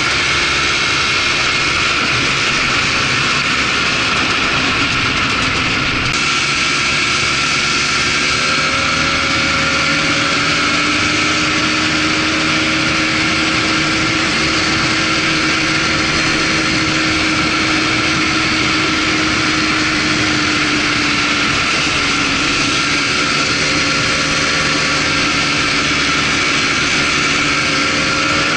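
Polaris Trail Blazer ATV engine running at a steady trail speed while riding, its note rising and falling gently with the throttle over a steady rushing noise.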